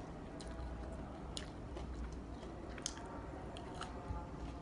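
A person chewing a crispy fried corn fritter, with a few short crunches and mouth clicks spread through.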